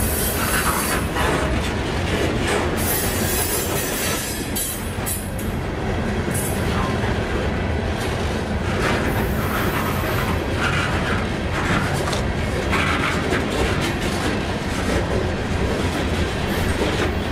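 Loaded freight train of open-top hopper cars rolling steadily past close by: steel wheels running on the rail with a continuous rumble and repeated clicking over the rail joints.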